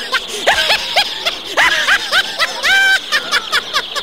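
A run of short, high-pitched 'ha ha' laughs, with one longer drawn-out laugh about three seconds in, over the steady high cheeping of a crowd of chicks.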